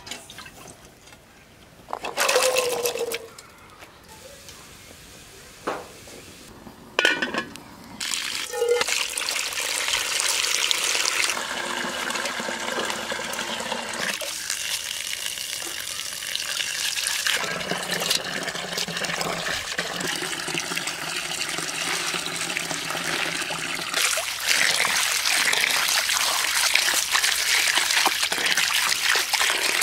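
A few clanks of a metal pot being set down and handled, then a steady stream of water running into the pot while bunches of dill and leafy greens are rinsed and swished in it by hand, getting louder near the end.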